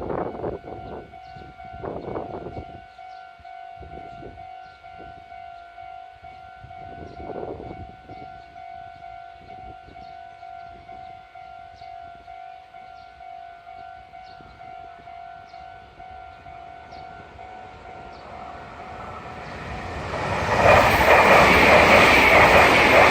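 Japanese railroad crossing warning bell ringing a steady, evenly repeating 'kan-kan' tone. Near the end a Meitetsu train arrives and passes close by with a loud rush of wheel and running noise that drowns out the bell.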